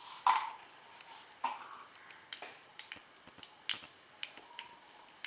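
Mustard seeds spluttering in hot oil in a kadai: scattered sharp pops at uneven intervals, the loudest just after the start. The oil is hot enough for tempering.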